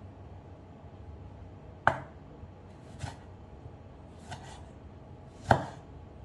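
Kitchen knife cutting through a tomato and knocking on a wooden cutting board: about five cuts, a sharp knock about two seconds in and the loudest near the end, with fainter ones between.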